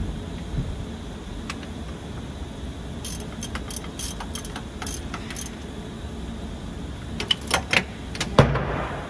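Light metallic clicks and clinks from hand work on engine parts, scattered through the middle, then a few louder clinks and one sharp metal knock near the end, over a steady low hum.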